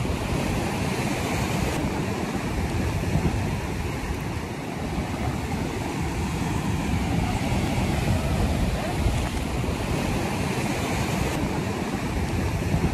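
Sea surf washing against a rocky shore, a steady rushing hiss, with wind buffeting the microphone.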